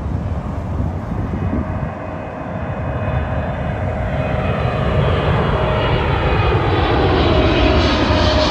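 Twin-engine cargo jet's turbofan engines on landing approach, a steady rumble with a whine that grows louder as the plane nears overhead. The whine begins to drop in pitch near the end as the jet passes over.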